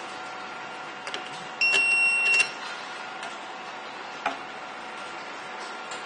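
Retekess restaurant paging system giving one high electronic beep, just under a second long, about one and a half seconds in, with light clicks just before it. A single sharp tap follows a few seconds later.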